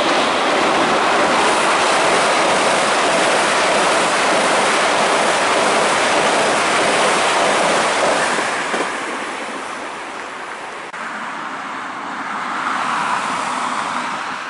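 JR Central 383 series limited-express electric train running across a steel girder bridge: a loud, steady rush of wheel-on-rail and bridge noise that falls away about eight seconds in as the train clears the bridge. Near the end a second electric train approaches and the rushing noise builds again, more quietly.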